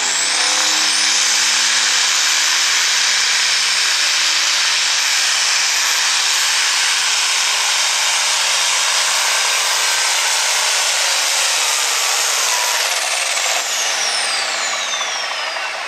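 Turbocharged diesel engine of a John Deere 4010-bodied light pro stock pulling tractor running flat out under load on a pull, the turbo whistle climbing at the start and holding high. About thirteen seconds in the engine backs off and the turbo whine winds down.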